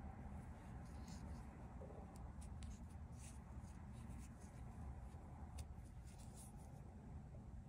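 Faint scratching and rustling of a crochet hook drawing yarn through stitches: scattered short, irregular scratches over a low steady room hum.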